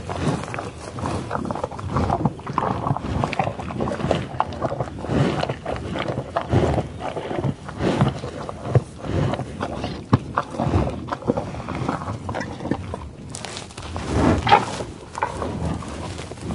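Buffalo feeding in tall grass: a dense run of irregular rustling, tearing and chewing with sniffing breaths, and a louder sniff about fourteen seconds in.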